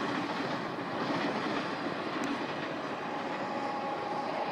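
A train running past on the track: the steady rolling noise of its wheels and cars, with a faint thin whine coming in about three seconds in.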